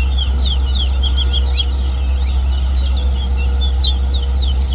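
Towa-towa seed finch singing a rapid string of short, sharp chirped notes, the song that is tallied in a bird song race. A steady low rumble runs underneath.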